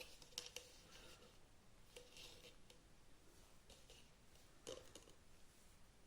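Near silence: room tone with a few faint clicks and rustles.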